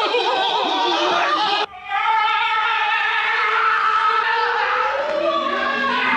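Several men yelling in panic, then, after an abrupt cut, long drawn-out screams from several voices as they run. Near the end, plucked acoustic guitar notes begin.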